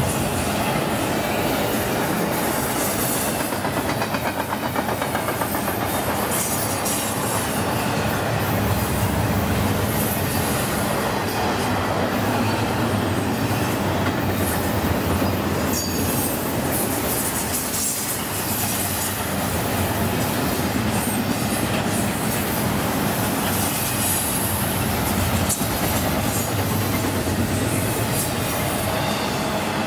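Double-stack intermodal container train's well cars rolling past: a steady rumble and clatter of steel wheels on the rail, with high-pitched wheel squeal coming and going as the train rounds the curve.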